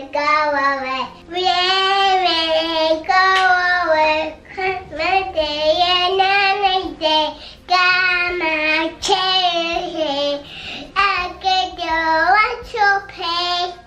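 A young girl singing in a high voice, phrase after phrase with short pauses between.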